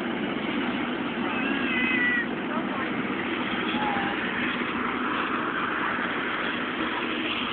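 Steady outdoor background of crowd chatter and running engines, with a brief high-pitched wavering cry about a second and a half in.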